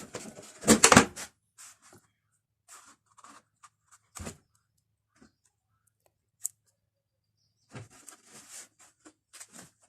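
Hands working the plastic top cover of a twin-tub spin dryer loose: a loud clatter about a second in, a single knock about four seconds in, then light clicks and rustling of plastic parts near the end.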